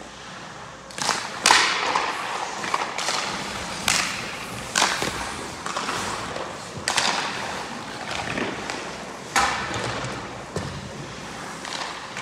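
Hockey skate blades scraping and carving on ice, with sharp clacks of pucks and sticks striking about half a dozen times, each strike trailing off in an echoing hiss.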